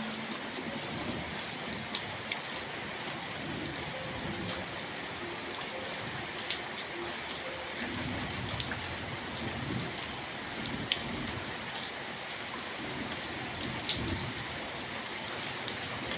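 Steady rain falling onto puddles and wet surfaces, with scattered sharp ticks of single drops striking.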